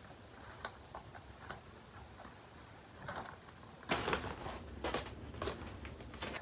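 Paper rustling and light taps as cross-stitch chart sheets are handled and shuffled: a few soft ticks at first, then louder rustles from about three seconds in.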